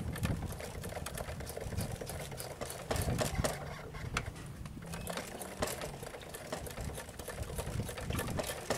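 Suzuki AX100's small two-stroke single-cylinder engine running at idle: a fast, even mechanical clatter.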